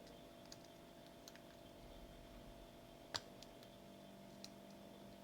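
Faint small metallic ticks of a hook pick moving across the pin stack of a 5-pin padlock, with one sharper click about three seconds in.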